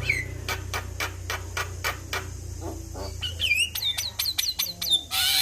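Male Javan myna singing: a fast run of dry clicks mixed with short whistled notes that swoop downward, ending in a loud harsh rasp about five seconds in.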